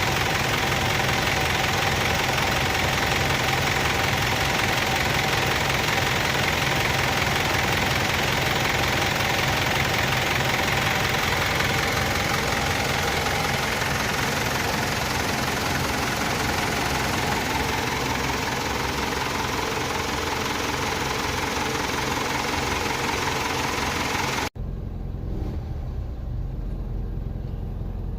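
Mitsubishi Fuso Canter's 4M50 four-cylinder diesel engine idling with a pakapaka/katakata clatter, the abnormal noise that the mechanic traced to the bottom end. About 24 seconds in, the sound cuts abruptly to a quieter, duller engine rumble.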